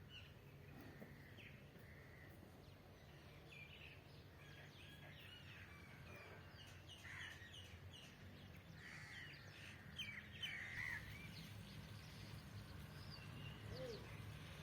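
Small birds chirping faintly and repeatedly, in short high calls, over a low steady hum.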